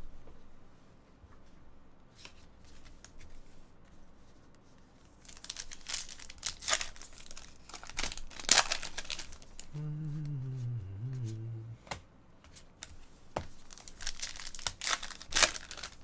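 Foil trading-card pack wrapper being torn open and crinkled by hand, in two bouts of crackling about halfway through and near the end.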